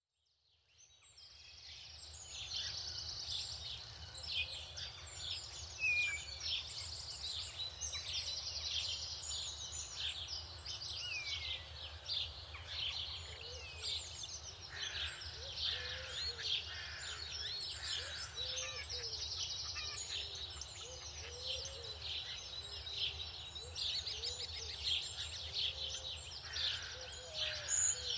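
Many birds chirping and trilling at once, a dense chorus that fades in over the first couple of seconds, over a steady low hum.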